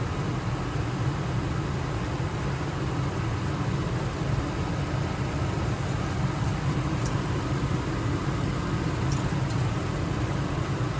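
2003 Ford F-150's engine idling steadily, warm at normal operating temperature.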